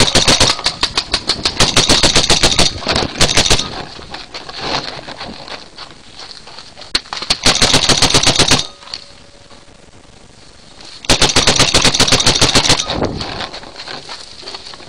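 Paintball marker firing rapid strings of shots in three long bursts, with scattered single shots in between.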